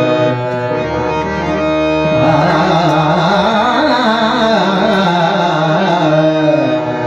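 Indian devotional music in raga Bhupeshwari: a singer's wordless alaap, the voice gliding and wavering for a few seconds, over steady held accompanying notes.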